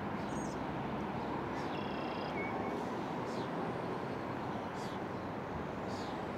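Steady outdoor rushing noise, with short high bird chirps and whistled notes breaking in every second or so.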